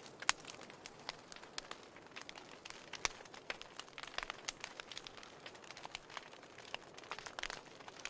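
Wood fire crackling in an open fireplace: irregular sharp pops and snaps over a soft hiss, with a louder pop about a third of a second in and another about three seconds in.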